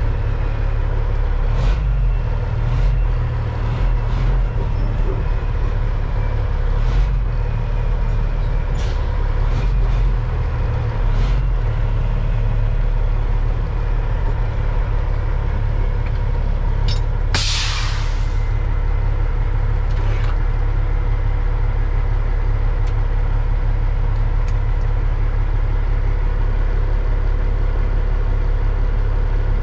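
Peterbilt 379's Caterpillar diesel engine heard from inside the cab, a steady low drone with a faint steady whine over it. About halfway through, the truck's air system lets out one short hiss of air, and there are a few light clicks in the first half.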